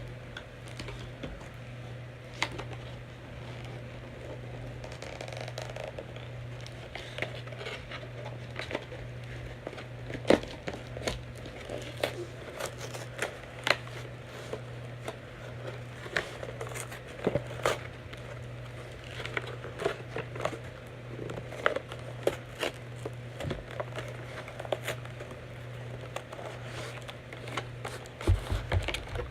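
Action figure packaging being opened and handled: irregular crinkling with scattered sharp clicks and snaps, over a steady low hum.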